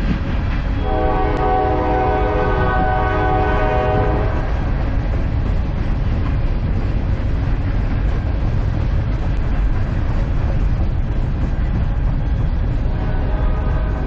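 Loaded coal hopper cars rolling past with a steady, loud rumble. A train horn sounds a chord for about three seconds starting about a second in, and again near the end.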